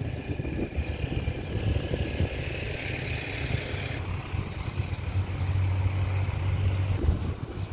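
Alstom diesel-electric locomotive, not yet in sight, with its engine throttled up to haul a long, heavily loaded freight train: a steady low drone that grows stronger about five seconds in.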